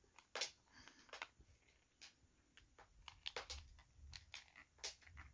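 Faint, scattered light clicks and taps of a magnetic wand and small balls and pieces moving on a wooden magnetic maze board.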